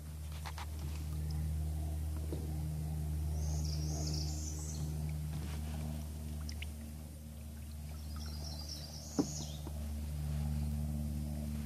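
A steady low engine drone whose pitch shifts slightly twice. Birds chirp in two short high bursts, the first a few seconds in and the second before a single sharp click near the end.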